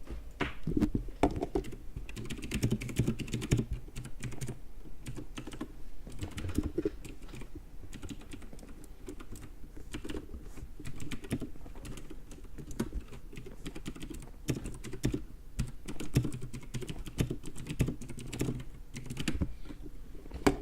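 Computer keyboard typing: fast, irregular key clicks in quick runs with short pauses.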